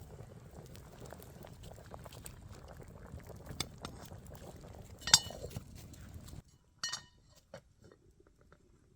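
Metal clinking, like cookware or utensils, with two sharp ringing clinks about five and seven seconds in, over a steady low noise with light crackles that cuts off abruptly about six and a half seconds in.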